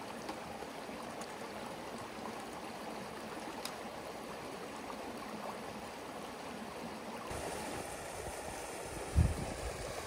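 Creek water flowing steadily, with a dull, low thump near the end.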